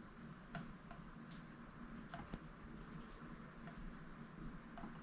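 Faint room tone with a few scattered light clicks.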